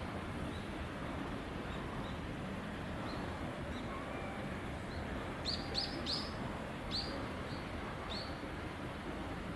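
A small bird chirping in short, sharp notes over a steady low background rumble: a few faint chirps at first, then a louder run of three quick chirps a little past halfway and a few single chirps after.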